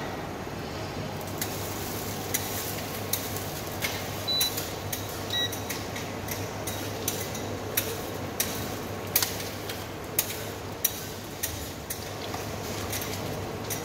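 Kitchen utensils knocking and clinking against stainless-steel stockpots and a ceramic bowl as noodles are blanched in a mesh strainer: irregular sharp knocks, a few each second at the busiest, over a steady background hum.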